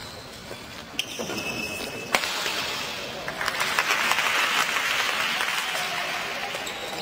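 Two sharp knocks about one and two seconds in, then scattered spectator applause and crowd noise that swells and holds through the rest.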